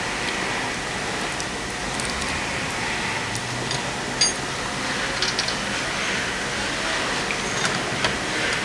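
Lug nuts being spun off a car wheel's studs by hand: a few light metallic clicks and ticks, the sharpest about four seconds in, over a steady background hiss.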